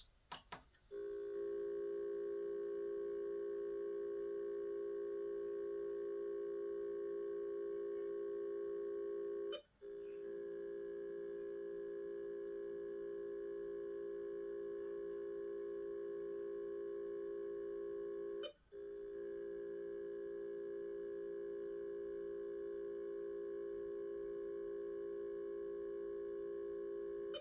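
Broken Seagate hard drive giving off a steady beeping tone that holds for about nine seconds at a time, cut by a short click-and-gap twice before starting again; a few clicks come just before the first tone. Such a tone is typical of a drive whose spindle motor is powered but cannot spin the platters up, as with heads stuck to the platters or a seized motor.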